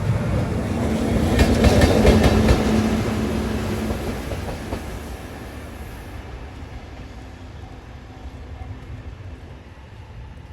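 A single EF65 DC electric locomotive passing close by, its wheels clacking over rail joints in a quick cluster about two seconds in, with a steady hum. The sound then fades as the locomotive moves away.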